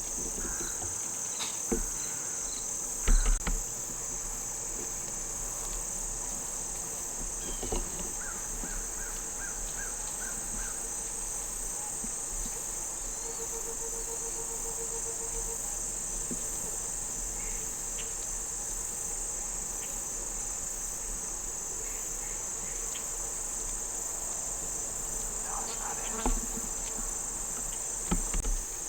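Steady, high-pitched chorus of crickets and other insects, with a few short knocks about three seconds in and again near the end.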